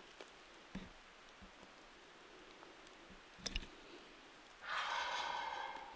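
A wild turkey gobbler gobbles once, a single call of just over a second that comes in sharply and trails off near the end. Earlier there are a few faint clicks and knocks.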